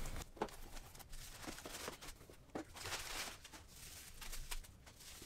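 A cardboard shipping box being opened by hand and a bubble-wrapped package lifted out: faint rustling of the packing material with a few soft taps and knocks.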